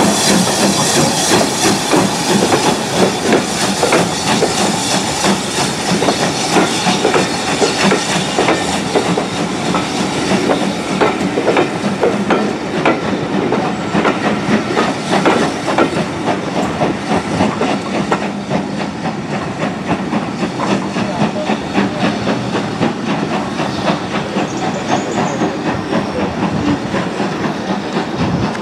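Steam locomotive working a train: a steady rapid rhythm of beats and wheel clatter on the rails under a hiss of steam, easing off slightly toward the end.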